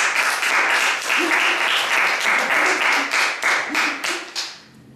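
Applause, many hands clapping together, greeting a correct answer. It fades out about four and a half seconds in.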